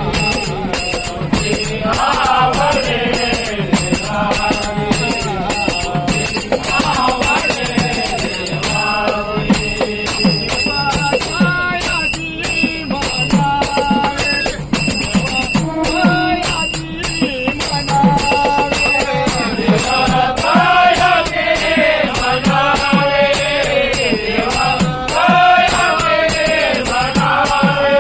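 Marathi devotional bhajan: a voice singing a melodic line over a steady rhythm of drum strokes and jingling metal percussion such as small hand cymbals. The singing is strongest in the second half.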